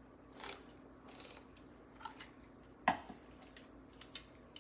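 Faint metal clicks and handling of a hand-crank can opener being worked on and freed from a tin can, with one sharper click about three seconds in.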